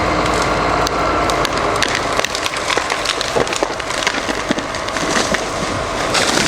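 Heavy logs being dropped, cracking and splintering in a dense run of sharp snaps and crashes. A steady machine hum runs under the first second, then stops.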